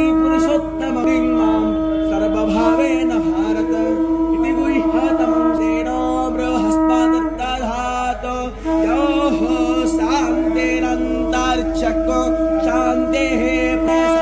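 A conch shell (shankha) blown in one long steady tone, which breaks off for about a second a little past the middle and then resumes, over a voice chanting Sanskrit verses.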